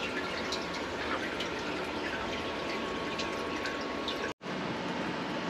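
Honing oil trickling and dripping inside a Sunnen SV-30 CNC vertical hone, over a steady machine hum. The sound drops out for an instant about four seconds in.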